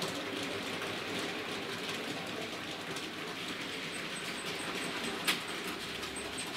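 Bachmann OO gauge Class 56XX model tank engine running along the track: steady motor and wheel running noise, with one sharp click about five seconds in.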